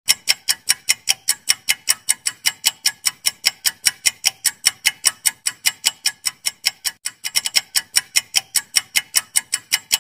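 Clock-ticking sound effect of a quiz countdown timer: sharp, regular ticks about four a second, with a brief quicker flurry about seven seconds in.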